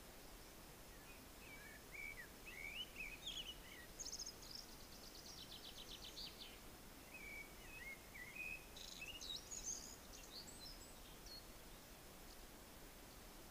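Songbirds singing faintly: short chirping and warbling phrases, a rapid trill about five seconds in, then more chirps, over a steady faint hiss.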